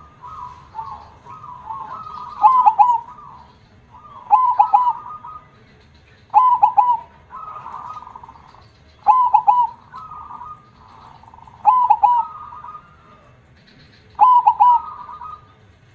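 Zebra dove (perkutut) cooing its repeated song: six loud phrases about every two and a half seconds, each a quick stuttering run of coos, with softer rolling coos between them.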